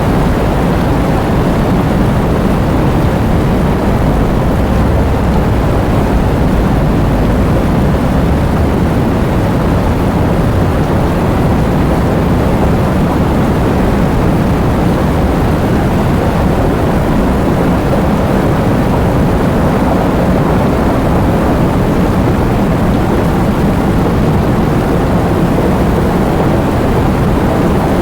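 Heavy rain and wind: a loud, steady, dense wash of noise, deep and full in the low end, with no single drops or gusts standing out.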